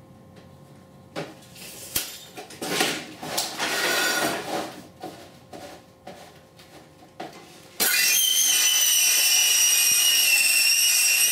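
Vinyl siding being handled on the saw table gives a few seconds of plastic rattling and knocks. About eight seconds in, a DeWalt cordless circular saw starts and runs with a steady high-pitched whine as it cuts across the vinyl panel along the table's track, stopping abruptly at the end.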